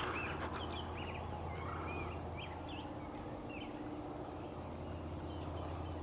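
Turkey clucks and purrs: a scattered string of short chirping notes over the first four seconds or so, over a low steady hum.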